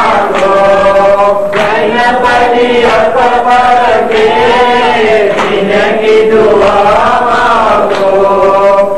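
A noha, a Shia mourning lament, chanted by men's voices in a slow, wavering melody. Hand strikes of chest-beating (matam) are heard along with it.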